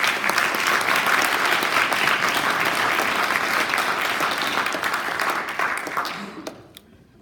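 Audience applauding, dense clapping that starts at once and dies away a second or so before the end.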